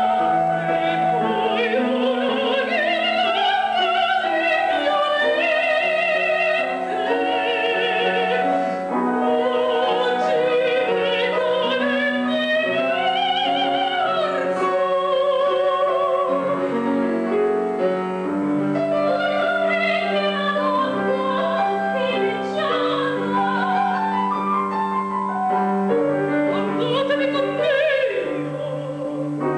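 Female operatic voices singing with wide vibrato, accompanied by piano.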